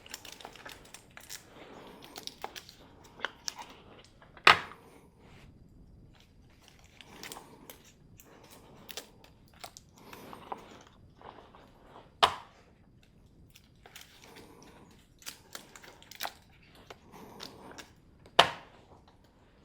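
Rustling and crinkling from material being handled, with scattered light clicks and three sharp, loud clacks spaced several seconds apart.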